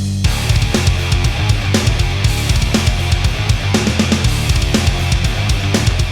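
Rock music with distorted electric guitar, bass and drums at a steady beat.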